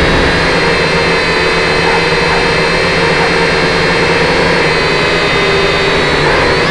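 Motors and propellers of a small remote-controlled flying model carrying the camera, running with a steady whine whose pitch wavers slightly.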